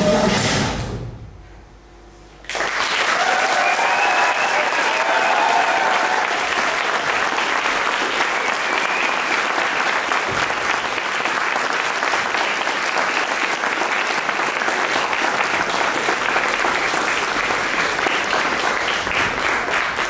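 Music ends and dies away in the first second or two; about two and a half seconds in, an audience starts applauding and keeps clapping steadily to the end, with a few voices calling out as the applause begins.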